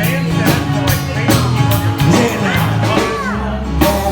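Rock song with a steady drum beat, bass and a sung vocal line.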